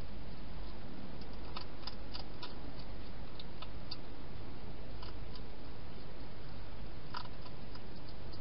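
Wild hedgehog eating at a feeding bowl inside a plastic feeding box: small, sharp chewing clicks and crunches, a cluster between one and four seconds in and a few more later, over a steady hiss.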